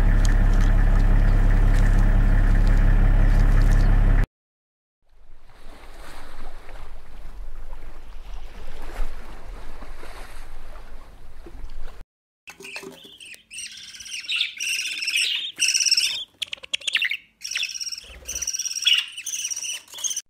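A loud steady low hum with evenly spaced overtones cuts off suddenly about four seconds in. After a short gap there is a faint hiss. Then, from about twelve seconds in, young parrot chicks chirp and squawk in quick, high calls.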